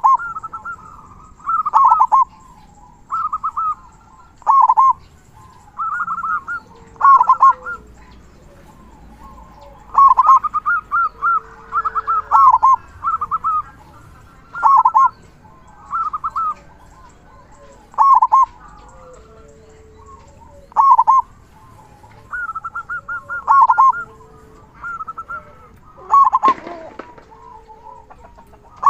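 Local zebra dove (perkutut) singing over and over, each phrase a quick run of short high coo notes ending in a stronger, lower 'kung' note, with a new phrase every one to two seconds.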